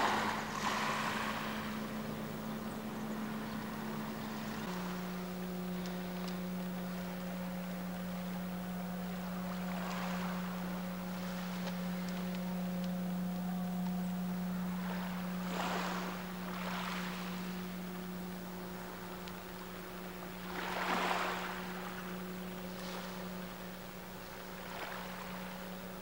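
Small waves washing up a pebble beach in repeated short surges, over a steady low engine hum that drops slightly in pitch about five seconds in.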